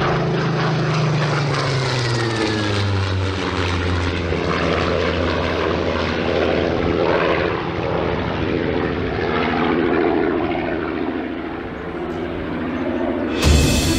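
Supermarine Spitfire's piston engine droning in a low pass, its pitch dropping as it goes by, then running on steadily.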